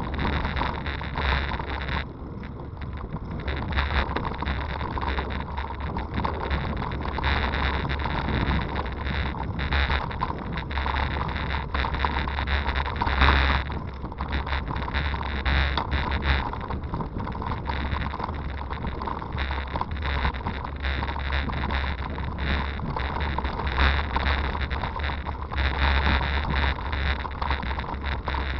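Wind rumbling on the microphone as a Scott Sportster hybrid bicycle rides a dirt and grass towpath, with tyre noise and frequent short rattles and knocks from bumps in the track.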